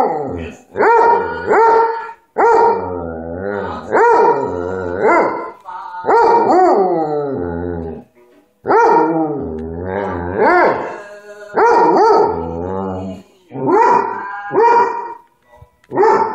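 Basset hound howling along to music: a run of long, wavering howls, each rising and falling in pitch and lasting a second or two, with short breaks between them.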